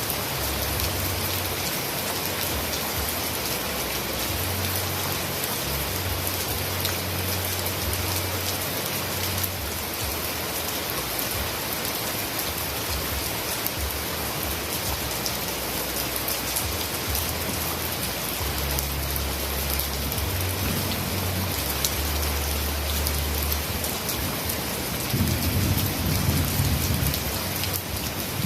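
Heavy rain falling steadily, a dense even hiss of drops. A low rumble swells in about 25 seconds in.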